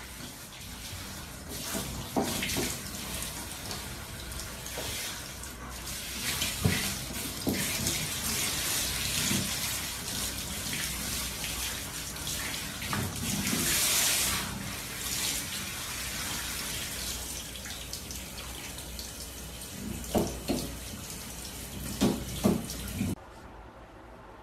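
Handheld shower head spraying water onto a Shiba Inu's coat, a steady hiss of water that swells in the middle, with a few short louder sounds twice near the end. The water cuts off suddenly about a second before the end, leaving only a low background.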